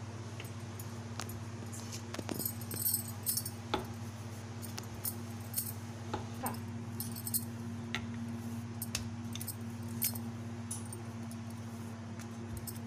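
Wooden rolling pin rolling out a dough round on a stone counter: scattered light clicks and knocks as the pin is pressed and shifted, over a steady low hum.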